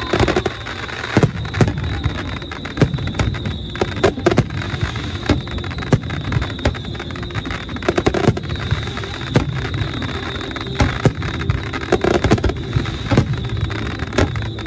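Aerial fireworks bursting overhead in a rapid, irregular series of booms and sharp cracks over a constant low rumble. A steady high-pitched tone runs underneath.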